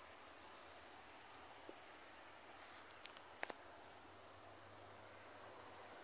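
Steady high-pitched drone of insects in the surrounding grass and trees, with a few short clicks about three seconds in.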